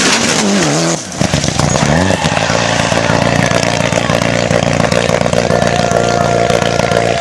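Mitsubishi Lancer Evolution rally car's turbocharged four-cylinder engine revving hard as the car accelerates away out of a hairpin. The revs swing up and down, dip briefly about a second in, climb again, then hold a steady high-revving note.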